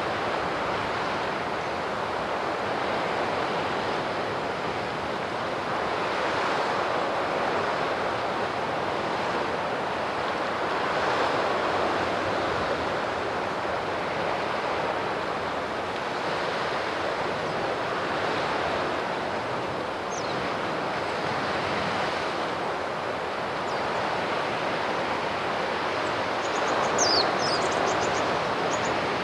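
Sea surf washing onto the shore: a steady rush of waves that swells and eases every few seconds. A few short high chirps come in near the end.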